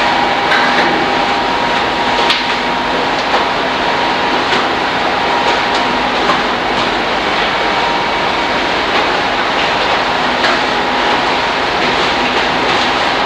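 Loud steady machinery din on a fishing trawler's processing deck, a constant noisy hum with faint steady tones in it, broken by scattered clicks and knocks.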